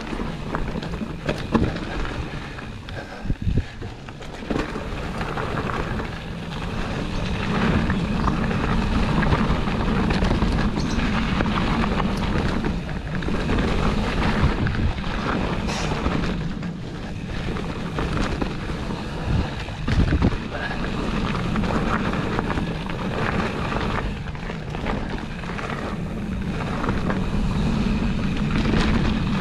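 Wind buffeting the microphone while a bike runs down a dirt trail, with tyre roar and scattered knocks and rattles from bumps.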